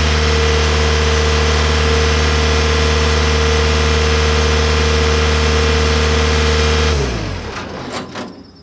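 Skid steer loader's engine idling steadily, then shut off about seven seconds in, its pitch dropping as it winds down. A couple of short clicks follow.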